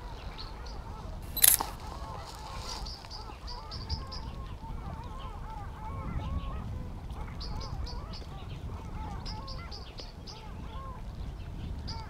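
Many short honking calls from waterfowl, mixed with short runs of rapid high chirps from a small bird over a low rumble. A single sharp click about a second and a half in is the loudest sound.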